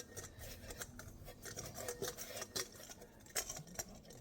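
Hands kneading and squishing a stiff sourdough starter dough in a bowl: irregular soft sticky clicks and crackles.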